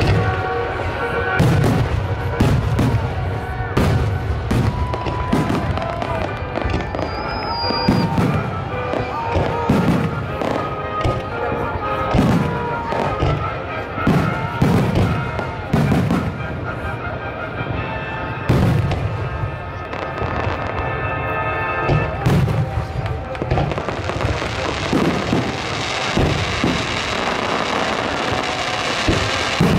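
Fireworks display with aerial shells going off in quick succession, many sharp booms about a second or less apart. Music plays underneath, and a denser hiss builds over the last few seconds.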